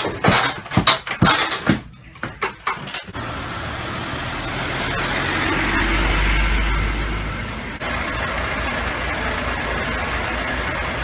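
A few short sharp knocks, then the low rumble of idling emergency-vehicle engines. The rumble swells and peaks about six seconds in beside an ambulance, then gives way near the eight-second mark to the steady running of a fire engine's engine.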